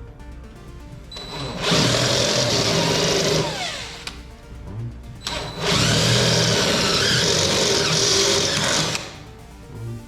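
Power drill boring a hole through the garage door for the door lock, run twice for about two and three seconds, its motor whine falling as the first run stops. Background music plays under it.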